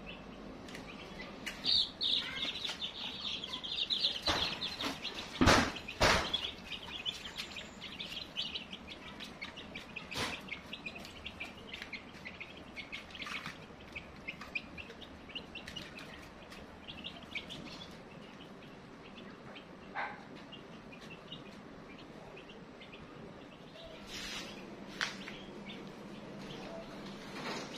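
Baby chicks peeping in a dense run of high chirps that fades out about two-thirds of the way through. Two sharp knocks come about five and six seconds in.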